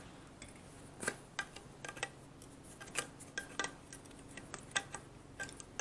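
Plastic attachment pieces of a handheld cordless vacuum cleaner clicking and knocking as the nozzle head is taken off and another is fitted; the vacuum is not running. The clicks are sharp and irregular, about a dozen of them.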